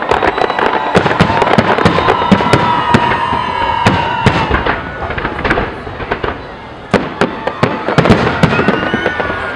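Fireworks display: a rapid run of sharp bangs and crackles, with whistling effects over them. One steady whistle lasts about three seconds in the first half, and more gliding whistles come near the end.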